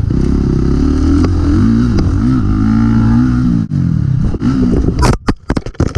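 Dirt bike engine running hard, its revs rising and falling as it works through the gears. About five seconds in, the engine note breaks up into a quick run of sharp knocks.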